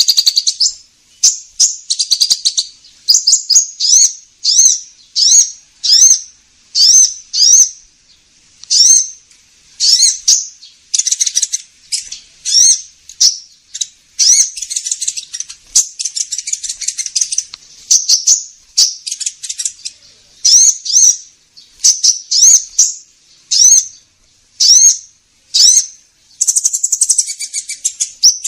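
Recorded lure call of the kolibri ninja sunbird: sharp, high-pitched chirps repeated about once or twice a second, broken by several buzzy, rapid trills.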